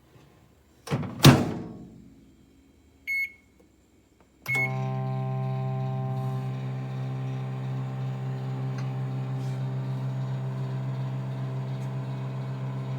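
Two knocks about a second in, the second the loudest, then two short high keypad beeps. With the second beep the BLACK+DECKER digital microwave oven starts and runs with a steady low hum, which cuts off suddenly at the end.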